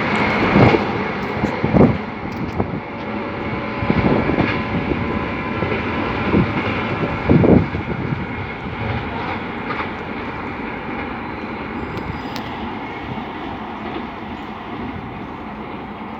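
An express passenger train's coaches rushing past at speed, with a steady rattle of wheels on rail and several loud clanks in the first eight seconds. The noise slowly fades as the train runs away.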